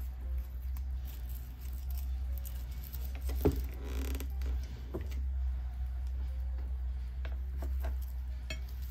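Room tone: a steady low hum with a few scattered light clicks and taps, the sharpest about three and a half seconds in.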